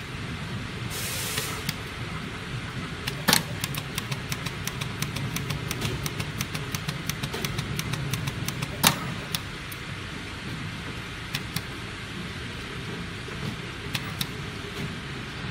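Automatic PVC coaster dispensing machine running: a steady low hum with many small clicks as the dispensing heads work over the mould. There is a short hiss about a second in and two louder clacks, about three and nine seconds in.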